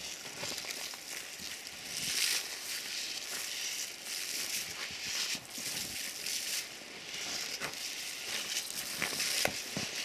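Intermittent crunching and rustling as several people tread on snow and slushy grass and toss grain feed from buckets onto the ground, with scattered small clicks.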